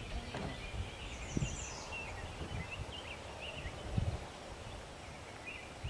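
Outdoor ambience of wild birds chirping and warbling, with a brief high trill early on, over a steady low rumble, with a couple of low bumps, about one and a half and four seconds in.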